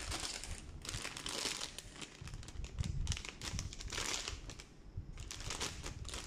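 Plastic bags of model-kit parts runners crinkling as they are handled, on and off with short pauses.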